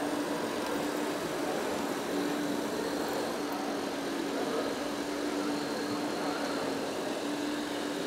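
Hydraulic scale RC tipper truck running, a steady hum with one constant tone over the even background noise of a large hall.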